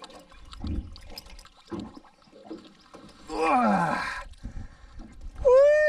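Channel catfish splashing at the water's surface as it is hoisted out of the water on the line, a loud burst about three and a half seconds in. Near the end a drawn-out vocal exclamation rises and falls in pitch.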